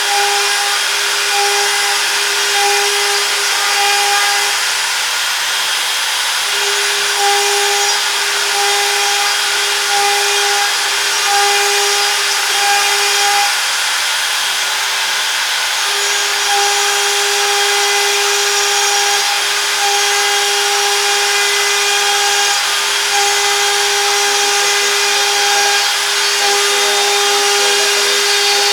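CNC router spindle running as the machine cuts, a steady high whine with a humming tone that drops out and returns several times.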